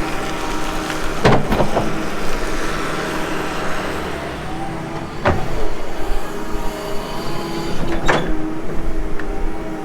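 Diesel engine of a tracked earthmoving machine running steadily under load, with sharp knocks: two close together just after a second in, another around five seconds, and one around eight seconds.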